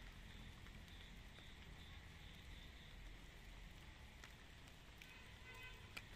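Near silence: faint outdoor background hiss with a few scattered soft clicks, and a brief high tone about five seconds in.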